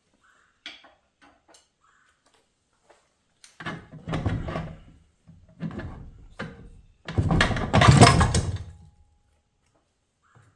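Metal internal parts of a Hyundai Kia 8-speed automatic transmission being handled and pulled apart on a bench: a few light clicks, then three bouts of scraping and clattering, the longest and loudest about seven to nine seconds in.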